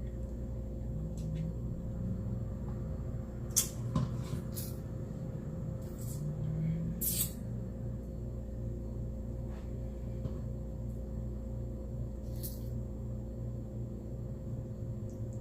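Quiet eating at a table: a handful of brief scrapes or clicks, the sharpest a few seconds in and again around seven seconds, over a steady low hum.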